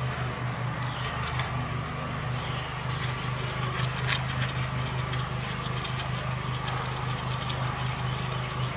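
Scattered small metallic clicks and taps from hand work on a VW transmission's mechatronic unit being fitted into place, over a steady low hum.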